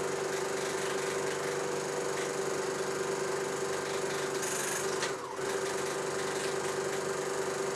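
Steady mechanical whir and hum of a 16mm film projector running. About five seconds in there is a brief dip, with a short falling sweep.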